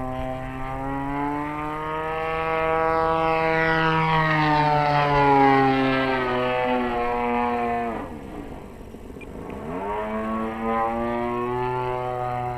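Desert Aircraft DA-35 single-cylinder two-stroke gas engine of a model aerobatic plane running in flight. Its pitch climbs over the first few seconds. About eight seconds in it drops steeply and quietens, then it rises again as the throttle is reopened.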